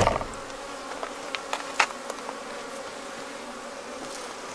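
Honeybees buzzing steadily in a dense hum around an open hive. There is a knock right at the start and a few light clicks about a second and a half in.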